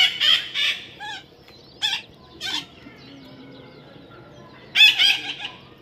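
Young parrot giving short, harsh squawks: a quick run at the start, single calls about one, two and two and a half seconds in, and another run near the end.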